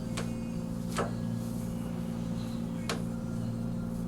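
A steady low electrical hum, with three sharp clicks over it: one at the start, one about a second in, and one near three seconds.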